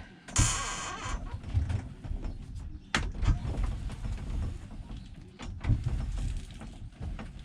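Popup camper's roof lift being hand-cranked up, with creaking and scraping from the mechanism, a sharp click about three seconds in, and irregular low knocks.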